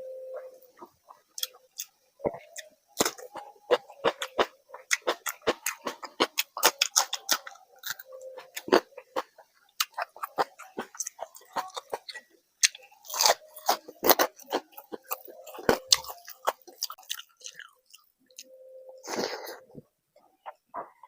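Close-miked chewing and eating of a rice-and-curry meal: a dense, irregular run of wet mouth clicks and smacks, with a few louder, longer mouthfuls near the middle and towards the end.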